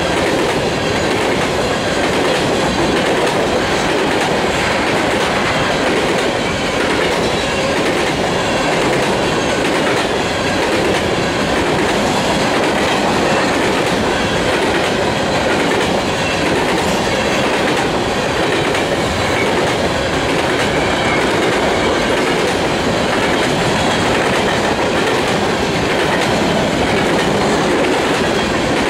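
Covered hopper cars of a freight grain train rolling past close by: the steady, loud noise of steel wheels running on the rails.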